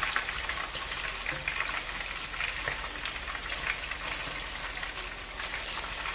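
Bacon-wrapped biscuits deep-frying in hot oil: a steady sizzle full of small crackles and pops.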